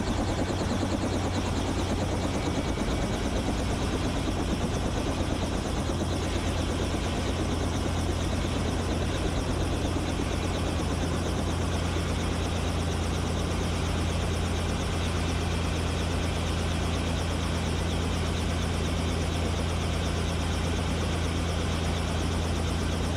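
Robinson R44 Raven II helicopter running steadily on the ground after landing, a constant engine and rotor hum heard from inside the cockpit.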